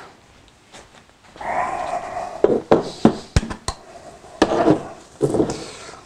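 Handling noises: a few sharp clicks and knocks about halfway through, among muffled rustling and movement.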